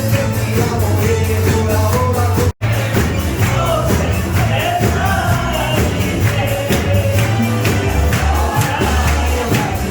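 Pop song with singing over a steady beat; the sound cuts out for a moment about two and a half seconds in.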